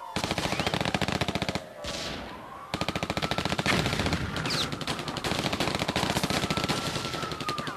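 Rapid automatic machine-gun fire in long continuous bursts, with a short break about two seconds in. Under it, a single wailing tone slowly falls and rises like a siren.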